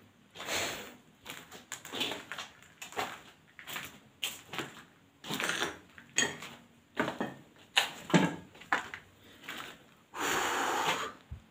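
Footsteps on a gritty, debris-strewn floor, with knocks and bumps coming irregularly about every half second to a second. Near the end comes a steadier noise lasting about a second.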